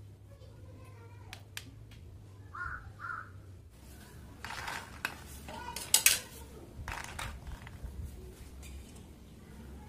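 Pomegranate seeds being put into and spread around a clear plastic tray: rustling clatter and sharp clicks of seeds and plastic, the loudest clicks about six seconds in. Earlier come two short calls in quick succession.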